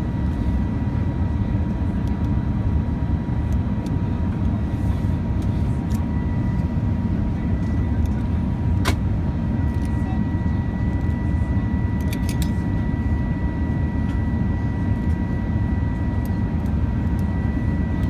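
Steady low roar of an airliner cabin in flight, with a faint steady whine above it. A few sharp metallic clicks of a seatbelt buckle being handled, one about halfway through and a quick cluster a few seconds later.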